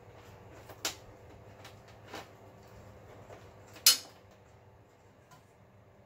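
Three sharp clicks and knocks as Ethernet cables are unplugged and pulled through a server rack, the loudest about four seconds in, over a faint steady hum.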